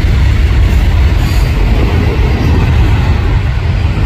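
Autorack freight cars rolling past on the near track: a steady, loud rumble of steel wheels on rail.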